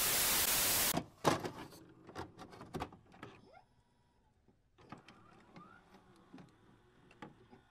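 Loud TV static hiss for the first second, cutting off sharply, then scattered glitchy clicks and short whirring electronic sweeps from a sound-effects track.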